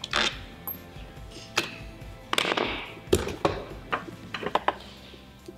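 Background music with a string of sharp clicks and clinks from mounting parts being handled, the busiest stretch about halfway through.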